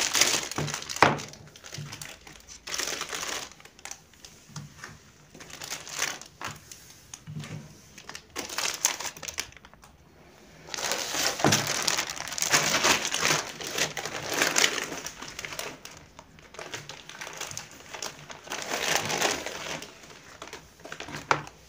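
Thin plastic balloon packaging crinkling and rustling in irregular bursts as hands open a packet and pull out handfuls of latex balloons.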